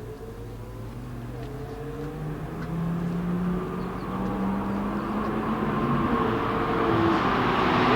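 McLaren P1's twin-turbo V8 approaching on the track, its engine note climbing in pitch and growing steadily louder.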